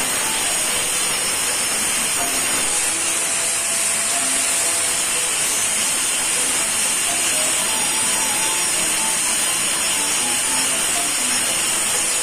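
Electric angle grinder running steadily against a dry wooden branch: a constant harsh grinding hiss with a high, even whine.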